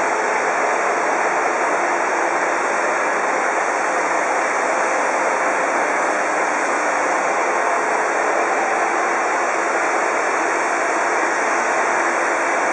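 Bottle-clamping belt conveyor running: a steady, even hiss-like machine noise with no rhythm and no change in level.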